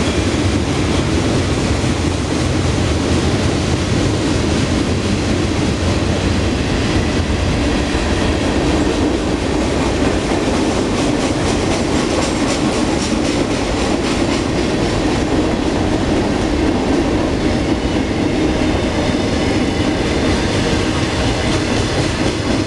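Freight train cars rolling past, a steady loud noise of steel wheels running on the rails. Clicks of the wheels over rail joints come through in the middle.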